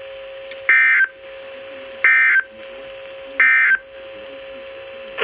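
Emergency Alert System end-of-message signal: three short bursts of SAME digital data tones, about a second and a half apart, marking the end of the alert. A steady low hum runs between the bursts.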